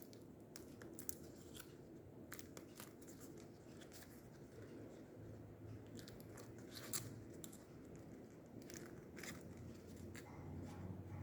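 A small homemade pop-it fidget being pressed with the fingers: faint, irregular clicks and crinkles, a few at a time.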